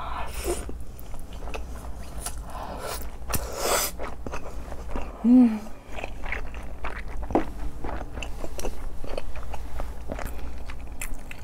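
Close-miked biting and chewing of a chewy, spicy buldak noodle wrap in a rice-paper skin, with many small wet mouth clicks. A brief hum of the voice about five seconds in.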